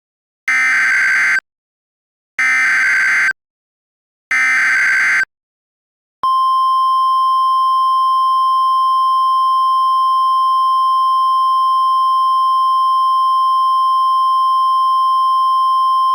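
Emergency Alert System tones: three roughly one-second bursts of buzzy digital header data, about a second apart. After a short gap comes a steady single-pitched attention tone, held for about ten seconds before it cuts off.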